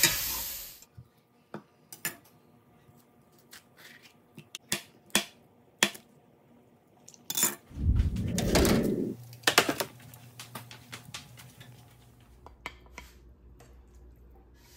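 Beef strips and mushrooms sizzling in a cast-iron skillet, cut off suddenly about a second in. Then scattered clicks and clatter of dishes and utensils as food is plated, with a louder, rumbling knock-and-clatter about eight seconds in.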